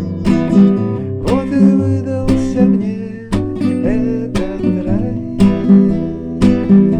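Acoustic guitar strummed in a steady rhythm. Roughly between the first and fifth seconds, a melody with sliding, bending notes runs over the strumming.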